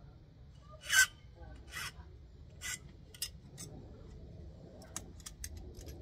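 Small file rasping across a key blank held in locking pliers, filing the marks while impressioning a key. There are several separate strokes, the first the loudest, then a quick run of shorter, lighter strokes near the end.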